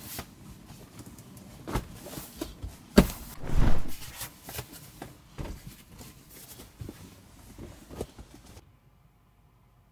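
Irregular knocks, bumps and clatter of things being handled, loudest about three seconds in, then cutting abruptly to a faint low hum near the end.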